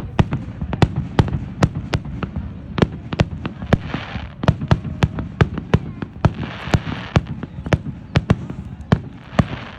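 Fireworks going off: a rapid, irregular string of sharp bangs, several a second, with spells of crackle about four seconds in, around seven seconds and near the end.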